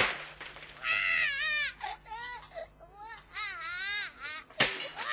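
A baby crying in a run of repeated, wavering wails. There is a short loud noisy burst at the very start and another one about four and a half seconds in.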